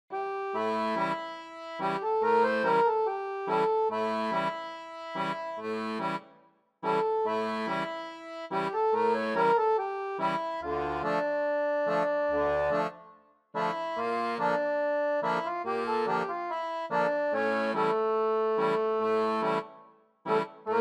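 Instrumental background music in repeating phrases, each ending in a brief break about every six to seven seconds.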